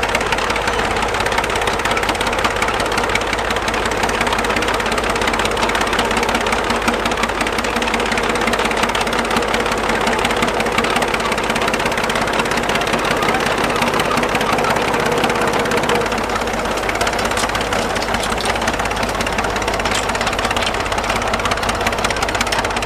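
Caterpillar Diesel Thirty-Five crawler tractor's diesel engine running steadily under load while pulling a multi-furrow plough.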